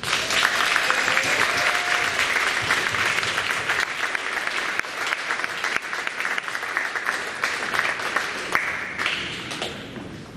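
Audience applauding: dense clapping that starts abruptly and thins out near the end.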